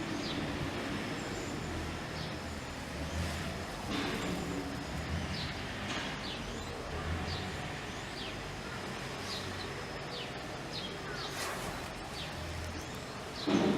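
Repeated short, high chirps, each falling in pitch, about one a second, over a low steady rumble.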